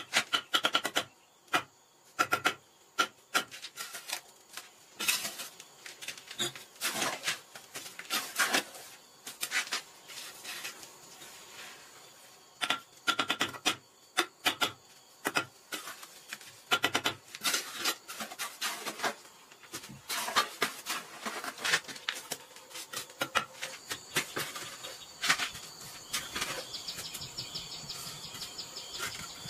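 Steel trowel scraping and tapping cement mortar on hollow clay bricks as they are laid, in quick irregular clusters of sharp scrapes and clicks with short pauses between.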